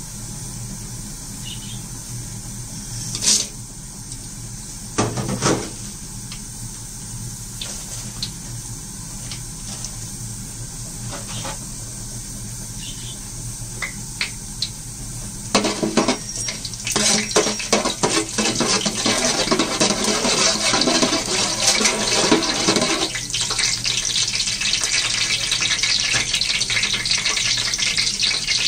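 Whole spices (coriander seeds, bay leaves, cinnamon, cloves and cardamom) in hot oil in a large aluminium pot: a few light clicks at first, then from about halfway a dense sizzle and crackle as the spices fry.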